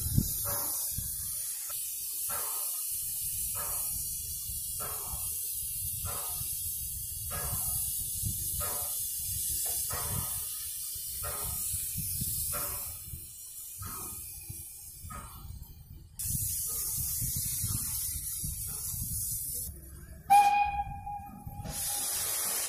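Ol49 steam locomotive standing with steam hissing steadily and a slow, even chug about every second and a quarter. Near the end it gives one whistle blast of about a second and a half, the loudest sound.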